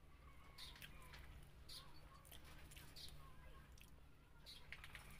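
Faint, close-up chewing and wet mouth smacks from a person eating rice and fried fish by hand, a soft smack every half second or so.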